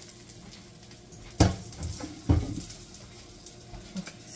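Two dull knocks of a frying pan against cookware, about a second apart, as the pan is tipped to empty out fried onions.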